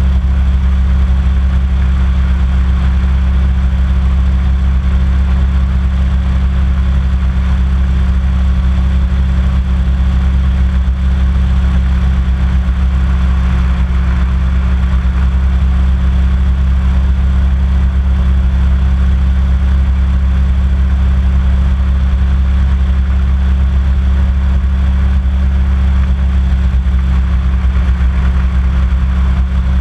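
Small hovercraft's engine and fan running steadily while underway on the water, a loud, even low drone with no change in pitch.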